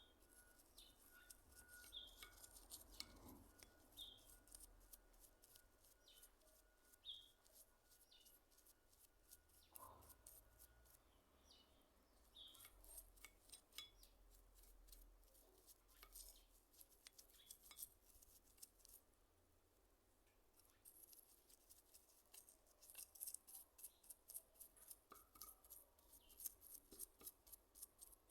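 Near silence, broken by faint scattered clicks and a few short, high chirps.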